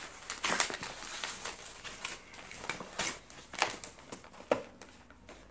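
A mailer envelope being torn open and handled: a run of irregular ripping and crinkling strokes that thin out near the end.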